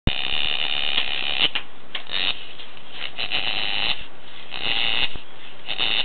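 Heavily pregnant Boer goat doe making a run of short, high whining noises, five in a row of uneven length, a sign of her discomfort in late pregnancy about ten days before kidding.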